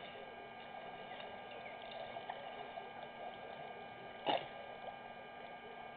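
Quiet waterhole ambience over a steady electrical hum, with faint scattered chirps. One short, sharp knock or splash about four seconds in is the loudest sound.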